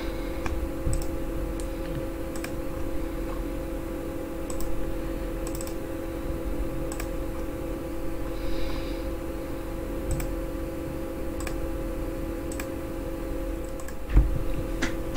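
Computer mouse clicks, sharp and spaced irregularly a second or two apart, as points of an outline are placed on screen. A steady electrical hum runs underneath.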